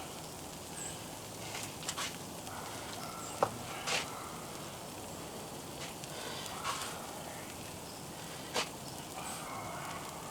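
A steady low hiss with six or so sharp, light clicks and taps spread through it, from hands and utensils working at an outdoor griddle as cheese is portioned onto slices of bread.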